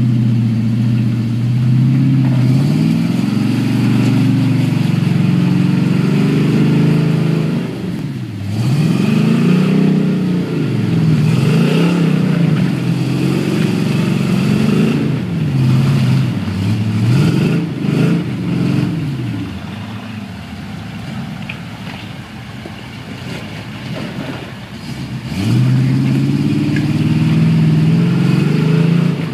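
Rock buggy engine revving hard in repeated bursts, the pitch climbing and dropping again and again as the buggy crawls up a rocky creek bed. It eases off to a lower, quieter note about two-thirds of the way through, then revs up high and holds near the end.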